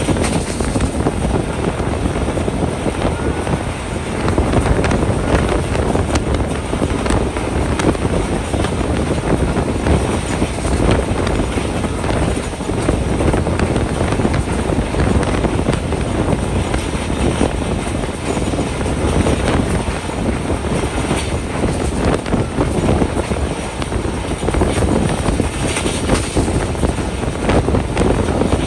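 Passenger train running at speed: a steady rumble and clatter of wheels on the rails, with wind rushing past.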